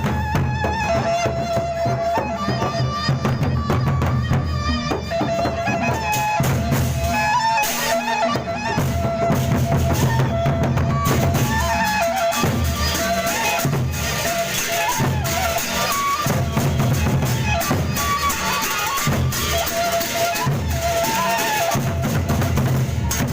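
Gendang beleq ensemble playing traditional Sasak processional music: large drums beating a steady pulse under clashing cymbals, with a high melody line on top.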